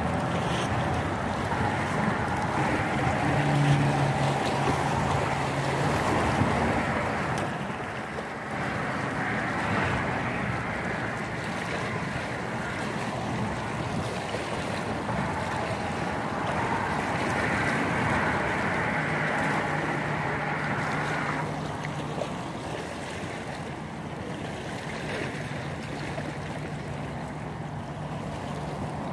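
Wind buffeting the microphone over choppy water lapping against the rocks below a seawall, with a low hum that comes and goes.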